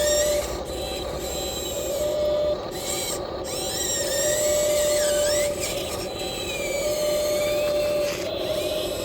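Whine of a radio-controlled model excavator's small electric motors and gearboxes, running in spells of a second or two that start and stop, with the pitch gliding up and down as they work.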